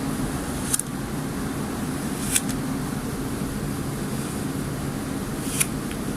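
Kinetic sand making three short, crisp crunches, about a second in, midway and near the end, over a steady low background hum.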